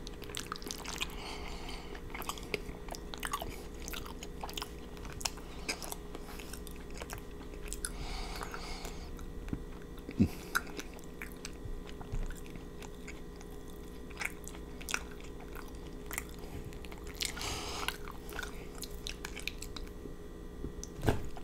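Close-miked chewing and wet mouth sounds of someone eating creamy fettuccine noodles, with scattered small clicks and a few sharper taps, including fork clinks against the glass baking dish.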